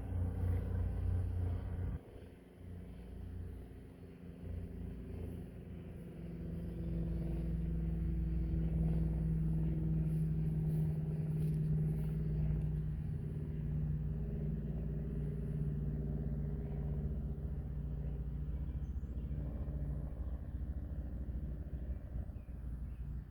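Riding lawn mower engine running with a steady hum, dropping away about two seconds in and building back up over the next few seconds, then holding steady.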